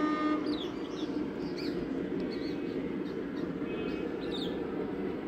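A locomotive horn's steady note cuts off just under half a second in. Birds then chirp with short rising calls, several times, over the steady low rumble of a train that is not yet close.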